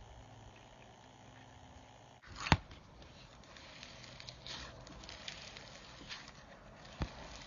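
Slime being squished and worked by hand, with soft irregular squishy crackles and a sharp pop about two and a half seconds in, and a smaller one near the end.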